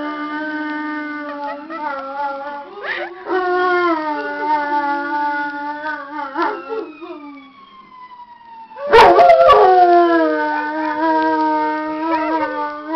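A dog howling in long, wavering held notes, set off by a siren. The howl breaks briefly about three seconds in, dies away around seven seconds, and starts again loudly about nine seconds in.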